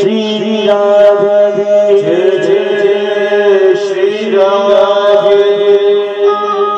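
Devotional bhajan music: a man's voice chanting a drawn-out line over an electronic keyboard holding sustained notes.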